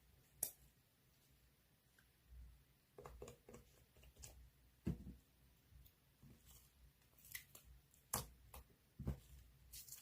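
Faint, irregular clicks and taps in a quiet small room, a dozen or so scattered short knocks with no steady rhythm.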